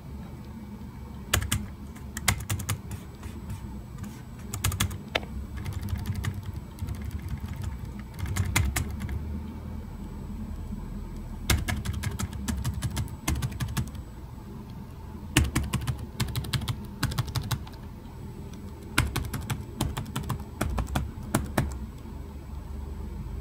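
Keys of an EPSON Direct Endeavor NY40S laptop keyboard being pressed in short runs of clicks with pauses between them, each key tested in turn for its sound and feel.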